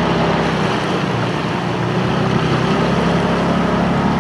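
Motor of an inflatable rescue boat running steadily, a low even hum under a broad rush of fast river water and wind.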